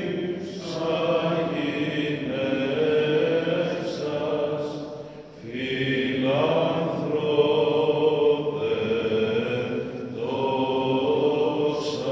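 Greek Orthodox Byzantine chant: voices singing a slow hymn in long held, gliding notes, with short breaks between phrases about five and ten seconds in.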